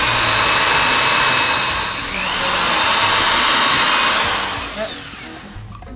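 Electric drill running with a twist bit boring into wooden door trim, in two runs with a short break about two seconds in. The drill winds down and stops about five seconds in.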